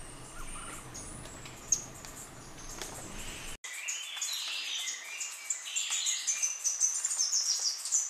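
Wild birds chirping in forest: scattered high chirps over a low background rumble at first. After an abrupt cut about three and a half seconds in, a busier, louder chorus of rapid high chirps and twittering trills takes over.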